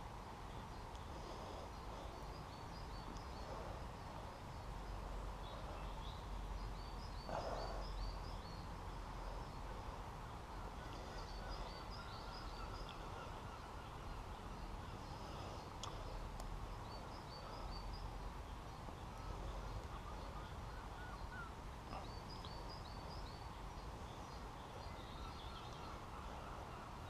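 A songbird repeating a short, quick chirping phrase every four or five seconds, over a steady hiss and a low rumble.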